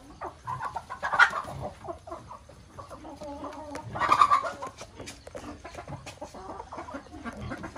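A flock of chickens clucking as they feed, with short overlapping calls and two louder calls, about a second in and about four seconds in.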